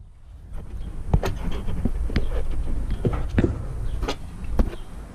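Scattered light metallic clicks and taps of a vending machine's door lock being worked loose by hand and screwdriver, over a steady low hum.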